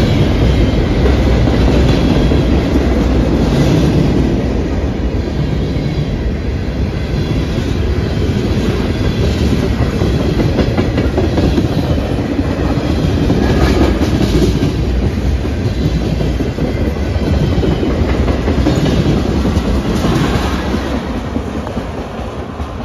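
Freight train cars, autoracks and then tank cars, rolling past with a steady rumble of steel wheels on the rails. The sound fades near the end as the last cars move away.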